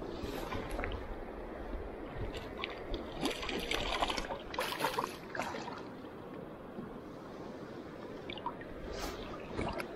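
A hooked trout splashing at the surface in several quick bursts as it is played in on a fly line, over the steady rush of river water. A few more splashes follow near the end as the fish is netted.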